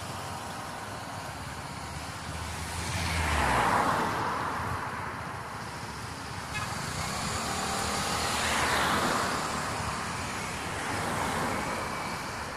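Cars passing on a street one after another over steady traffic noise: one swells and fades about four seconds in, another about nine seconds in, and a smaller pass follows near the end.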